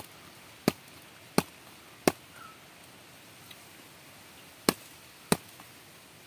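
Knife blows knocking on the head of a freshly caught giant gourami on the ground: four sharp knocks about two-thirds of a second apart, a pause, then two more near the end.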